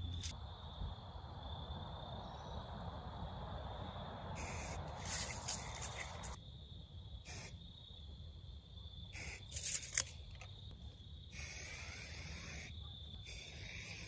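Aerosol marking paint sprayed onto grass in several short hissing bursts of a second or two each, with two louder bursts, one about five seconds in and one near ten seconds.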